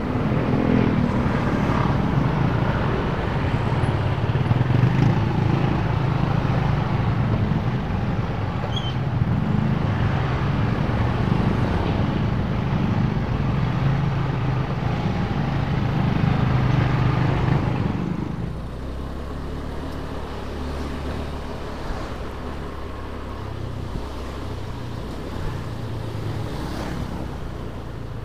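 Motor scooter engine running with road noise while riding; about two-thirds of the way through it drops to a lower, quieter hum as the scooter slows.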